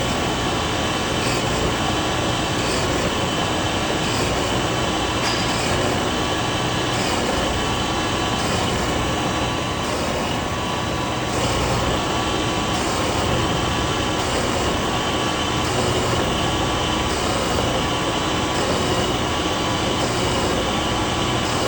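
Metalworking machine running steadily with a constant whine, a faint beat repeating about every one and a half seconds as its stroke cycles.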